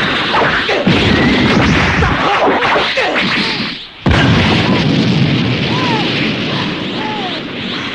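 Anime fight sound effects: a dense, loud string of hits and crashes. It drops briefly just before four seconds in and comes back with a sudden sharp hit.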